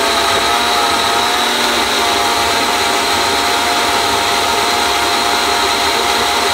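Blendtec blender motor running steadily, puréeing butternut squash soup; a loud, even whir with a few held tones.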